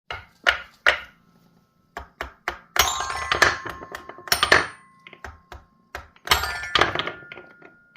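Wooden marble-run balls knocking down a track and striking xylophone bars, each hit ringing a short note. Single knocks at first, then two bursts of quick clatter with several notes ringing together.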